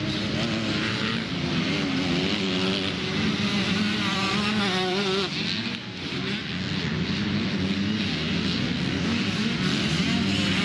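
Several motocross bikes racing, their engines revving up and down in overlapping, wavering pitches, with a brief dip in loudness about six seconds in.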